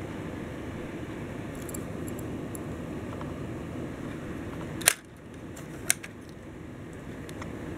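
Small plastic toy-train parts and Lego wheel sets being handled, giving a few light ticks. A sharp plastic click about five seconds in and another a second later come as wheels are taken off or fitted. Steady background hiss underneath.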